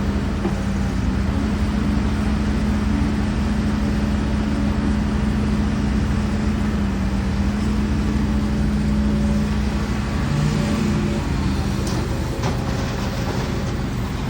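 Heavy diesel earthmoving machinery running steadily with a deep, even drone. The drone drops away about eleven seconds in, and a few sharp knocks follow.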